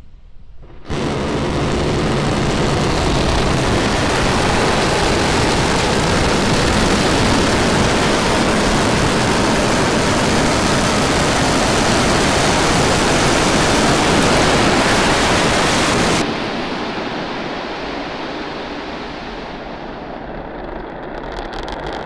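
Starship SN10's Raptor rocket engines firing for the landing burn: a loud, even roar starts abruptly about a second in. It cuts down sharply about sixteen seconds in, leaving a quieter rumble.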